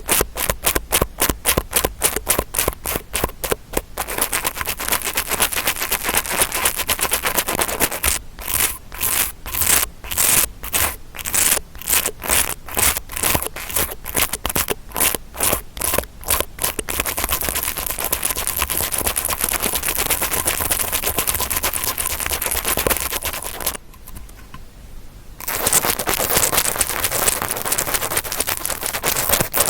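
Ear-cleaning ASMR scratching made with an interdental brush, a close crackly rubbing. It comes in fast rhythmic strokes of about four a second, then alternates between dense continuous scrubbing and slower strokes of about two a second, and dips briefly near the end before the scrubbing resumes.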